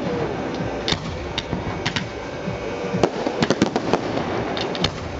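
Fireworks display: aerial shells bursting with sharp bangs and crackles, a quick string of bangs about three to four seconds in.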